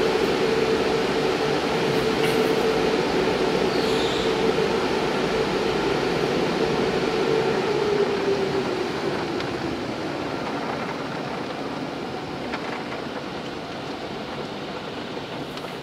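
Automatic car wash running, heard from inside the car: a steady rushing noise of the rotating wash brushes working over the body, with a machine hum that fades out about halfway through.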